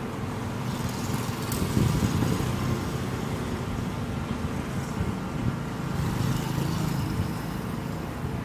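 Street traffic: cars driving past with a steady engine hum, swelling louder about two seconds in and again around six to seven seconds.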